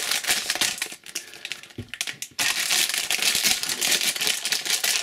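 Plastic blister packaging and foil wrapping crinkling and crackling as they are handled and crumpled, with rapid small crackles that ease off around a second in and pick up again about two and a half seconds in.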